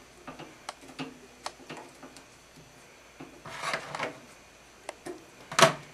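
Small clicks and taps of hands and tools working thread at a fly-tying vise during a whip finish, with a brief hiss about three and a half seconds in and one sharper click near the end.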